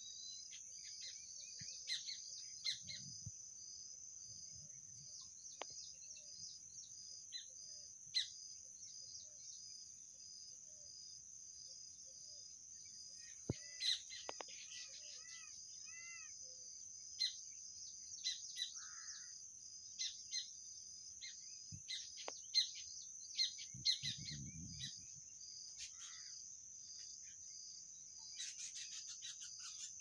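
Birds chirping in short, scattered calls over a steady, high-pitched insect hum.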